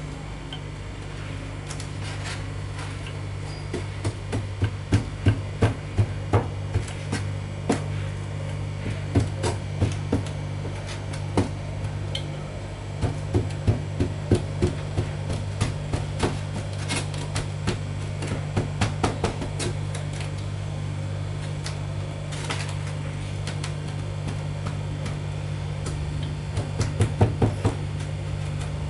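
Hand trowel tamping coconut-coir substrate in a styrofoam tray: irregular runs of sharp taps and knocks with some scraping, pausing for a few seconds before another short run near the end. A steady low hum runs underneath.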